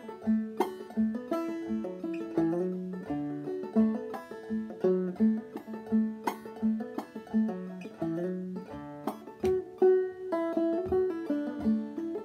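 Five-string open-back banjo played clawhammer style in double D tuning (aDADE): a steady bum-ditty run-through of an old-time D tune with drop-thumb notes. The first string is a little sharp, out of tune.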